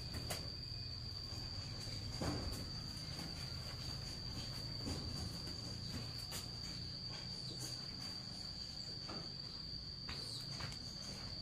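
Crickets trilling in one steady high note, with a few soft knocks and rustles scattered through it.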